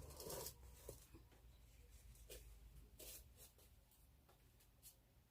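Near silence with a few faint, short clicks and rustles scattered through it, over a low steady hum.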